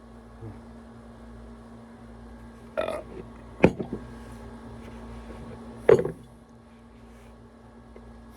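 Two short throaty sounds from a man, about three and six seconds in, with a sharp knock between them, over a steady low hum.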